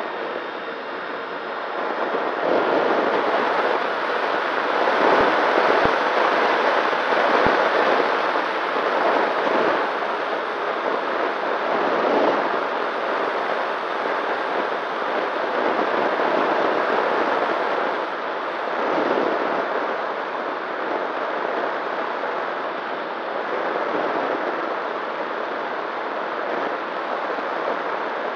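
Air rushing over the microphone of a small electric FPV plane's onboard camera in flight, swelling and easing, with a faint steady hum from the motor and propeller underneath.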